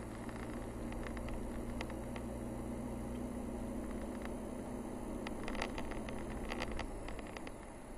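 Car engine and road noise heard from inside the cabin: a steady low drone with a humming tone that fades about seven seconds in. Light clicks and rattles come in a cluster between about five and seven seconds.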